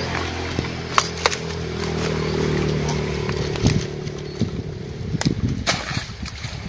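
A small engine running steadily at an even pitch, with a few sharp clicks over it.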